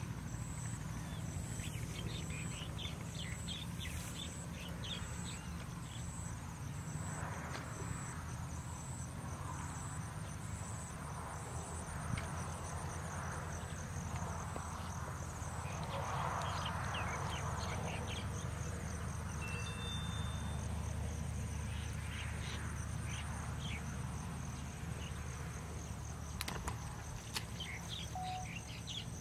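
Insects trilling in a steady high-pitched chorus, one trill pulsing about twice a second before running on continuously about halfway through, over a steady low hum.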